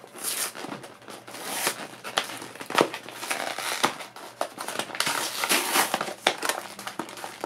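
Cardboard-backed plastic blister pack being torn open by hand: an irregular run of ripping card and crinkling plastic, with sharp crackles throughout.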